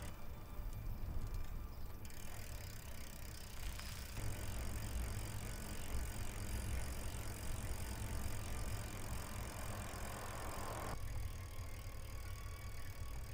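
Bicycle being ridden along a paved road: tyre and drivetrain noise over a steady low rumble. The noise changes abruptly a few times, about 2, 4 and 11 seconds in.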